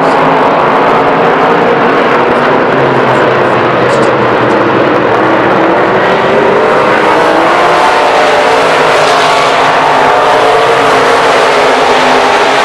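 A pack of dirt-track stock cars racing, many engines running hard at once in a loud, unbroken din, with engine pitch rising about halfway through as the cars accelerate.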